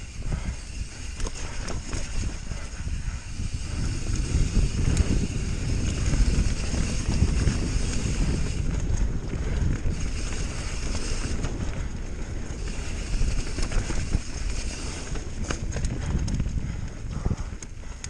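Bird Aeris mountain bike ridden fast down a dirt trail: rumbling tyres and wind on the microphone, with a constant irregular clatter and knocking as the bike rattles over roots and bumps.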